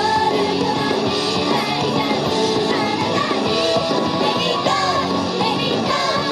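Upbeat Japanese idol pop song played loud, with a girl singing the lead melody into a handheld microphone over a dense rock-pop backing.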